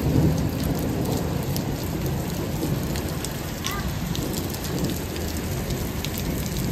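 Heavy rain pouring down and pattering on wet paving, a steady hiss dense with fine drop clicks. A low thunder rumble dies away within the first second.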